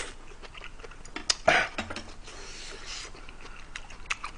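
Mouth sounds of a man eating kimchi stew: scattered soft clicks, with a short, loud breathy noise about a second and a half in.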